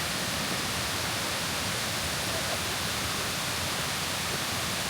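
Steady rush of water spilling down a cascading waterfall's tiers, an even, unbroken noise.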